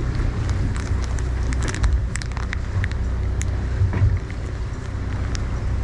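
Wind buffeting the microphone on the deck of a fishing boat at sea, over a steady low rumble from the boat, with scattered small clicks and taps.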